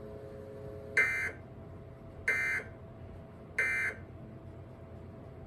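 Emergency Alert System end-of-message data bursts: three identical short digital screeches, a little over a second apart, the SAME code signal that closes the alert. Under them runs a faint steady hum.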